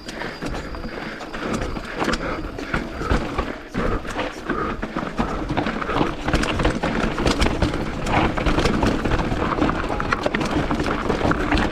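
Mountain bike descending a rough trail of loose rocks: tyres crunching and clattering over stones while the bike's frame and chain rattle, a dense run of irregular knocks over steady rushing noise.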